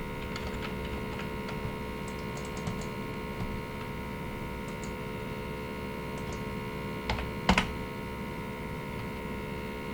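Typing on a computer keyboard: light, scattered key clicks over a steady electrical hum, then two louder key presses about seven seconds in.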